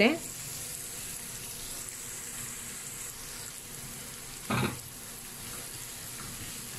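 Chopped onions sizzling steadily in hot oil in a nonstick pan, with a wooden spatula starting to stir them near the end. A short, louder pitched sound breaks in briefly about four and a half seconds in.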